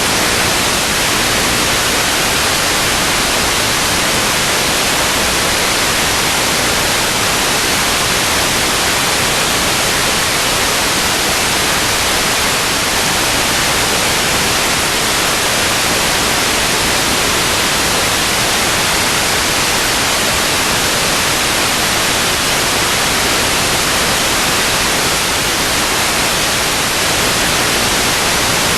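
Steady loud static hiss, even and unchanging, with no motor tone in it: the empty audio channel of an analog FPV video receiver's recording.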